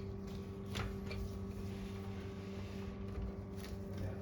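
A few light clicks of a desktop workstation's hard drive cage being handled and closed, over a steady low hum.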